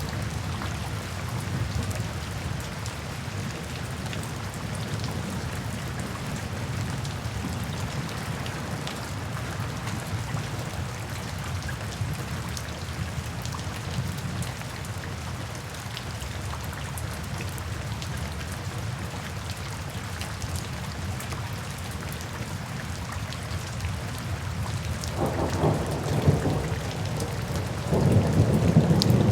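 Steady heavy rain falling, with a low rumbling underneath; near the end thunder rolls in twice, the second rumble louder.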